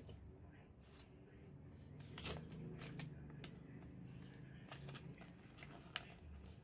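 Faint handling of cardboard watch packaging and a paper warranty card: soft rustling broken by a few sharp taps and clicks, one louder rustle about two seconds in and a sharp click near the end.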